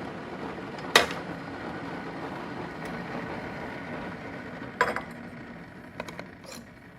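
Sharp clinks of glass or crockery: one loud clink about a second in, another near five seconds, and a couple of lighter ones after, over a steady hum.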